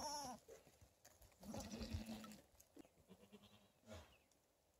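Goats bleating faintly: a short, high bleat right at the start and a lower, longer bleat about a second and a half in.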